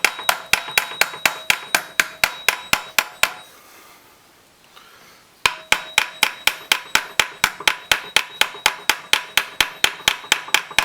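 Small hammer tapping rapidly and evenly, about five blows a second, peening over the end of a copper rivet to form its head, each blow with a short metallic ring. The tapping stops for about two seconds in the middle, then starts again.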